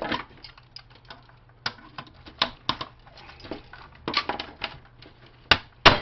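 Clattering and clicking of plastic and metal printer parts being handled and pulled apart by hand, with a few loud sharp knocks near the end.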